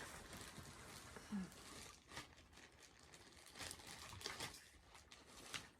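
Near silence, with a few faint clicks and rustles of things being handled.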